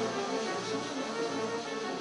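Live instrumental music led by a bowed violin, playing sustained, held notes.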